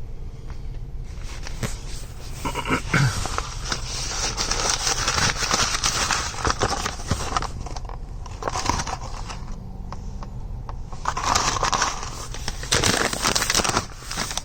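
Crinkling and rustling of a fast-food sandwich wrapper being handled and opened, in irregular bursts with short pauses.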